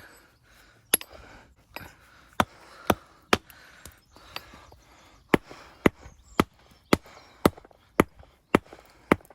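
Hammer striking a chisel to dress stone: a series of sharp metallic blows, spaced irregularly at first, then steady at about two a second through the second half.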